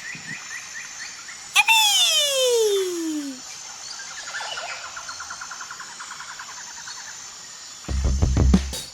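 Cartoon nature sound effects: soft repeated chirping, then a loud, sudden whistle-like tone about one and a half seconds in that slides steadily down in pitch, followed by a fast chirping trill. Near the end, music with a drum beat starts.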